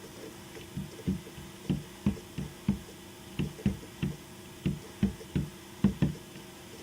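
A series of about fourteen light, dull knocks at an uneven pace, starting a little under a second in, with a faint steady hum underneath.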